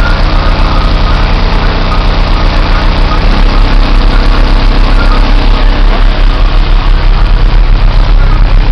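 Two FB Audio 3000 W RMS car subwoofers driven by a Taramps 30k amplifier playing a very loud, distorted low bass tone that pulses several times a second, shifting a little over three seconds in.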